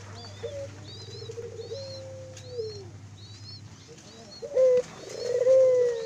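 Barbary doves cooing: long held coos that drop in pitch at the end, loudest near the end. A small bird chirps high and quick, about twice a second, through the first half.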